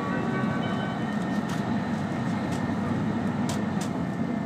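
Steady running noise of an E5-series Shinkansen at speed, heard from inside the passenger cabin: an even low rumble with a few faint ticks.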